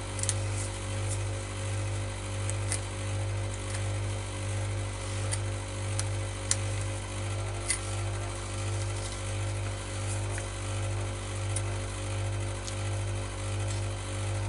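A steady low machine hum, rising and falling slowly and evenly in loudness, with a fainter higher tone above it and a few scattered light clicks.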